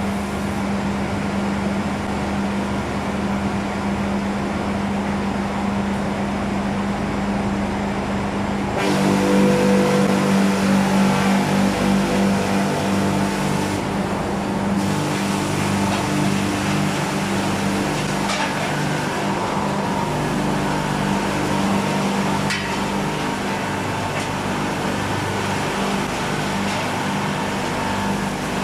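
LogRipper-300 scragg mill running, its electric motor and rip saws giving a steady hum as a log feeds through the saw head. About nine seconds in the sound turns abruptly fuller and briefly louder as the saws take the log, then settles into a steady cutting drone.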